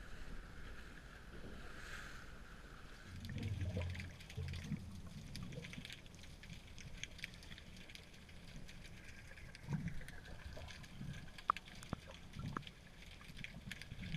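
Sea water sloshing and gurgling around a snorkeler's camera at the surface, then the muffled sound of being underwater, with faint bubbling and scattered small clicks and knocks.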